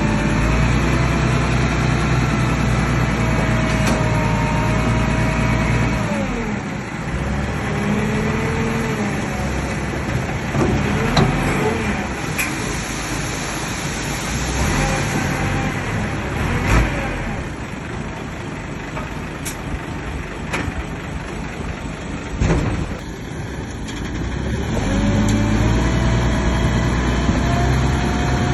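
Bulldozer's diesel engine working, with a whining tone that slides up and down as the engine speed changes. It eases off through the middle and comes back up near the end, with a few sharp metallic clanks.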